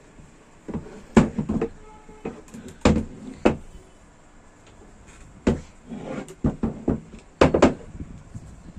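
Wooden clacks and knocks in irregular bunches, about a dozen sharp hits: the wooden parts of a folding peeta, a low wooden stool, knocking together as it is handled and folded.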